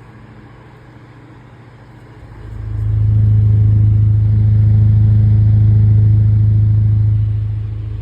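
Vintage GE table fan running with a steady low motor hum. The hum grows much louder about two and a half seconds in and eases off again near the end.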